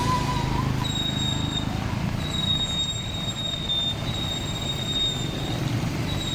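Steady outdoor rumble of a crowd in wind and rain. Over it, a high, piercing whistle-like tone sounds in three or four blasts of about a second or more each.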